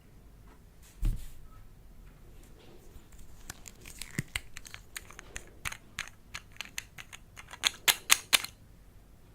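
Slime being handled and squeezed, giving a dull thump about a second in, then a long run of sticky clicks and small pops that grows denser and louder near the end.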